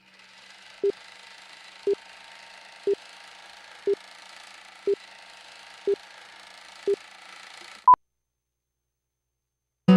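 Countdown leader on a video slate: seven short, low beeps one per second over a steady hiss, then a single higher-pitched beep as the count reaches two (the two-pop), followed by about two seconds of silence. Acoustic guitar strumming comes in at the very end.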